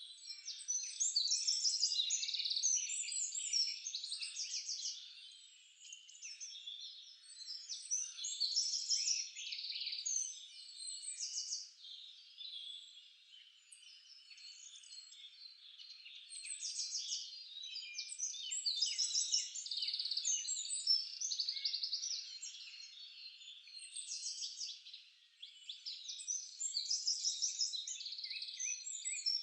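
Nature-sound soundtrack of many small birds chirping and trilling at once. The calls are high and come in overlapping bursts that swell and fade every few seconds.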